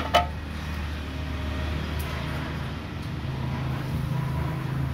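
A quick clatter of containers handled on a counter right at the start, then a steady low rumble of background traffic.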